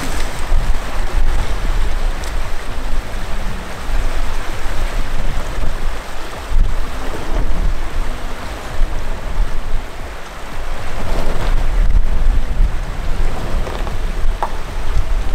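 2020 Range Rover Evoque wading slowly through a shallow rocky stream: water splashing and rushing around its wheels, with a low rumble underneath.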